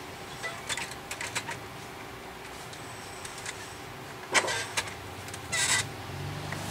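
Plastic clicks and rattles from the parts of an opened HP 5200 A3 printer being handled, with a sharper click about four seconds in and a short scraping burst a second later.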